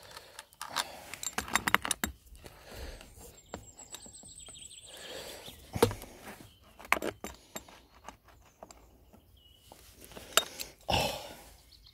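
Scattered light metallic clinks and knocks of electric chainsaw parts being handled and fitted back together, with small jingling like the saw chain being moved.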